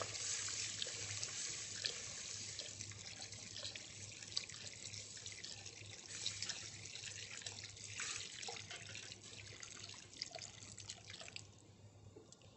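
Stock poured in a thin stream into a stainless steel pot of roux, with a wooden spoon stirring and clicking against the pot. The pouring fades out about a second before the end.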